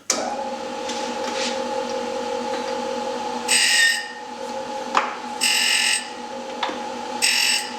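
High-speed grinder running with a steady whine, its wheel brought against the steel tooth of a ratchet pawl in three short grinding passes about two seconds apart, with a few sharp clicks between them.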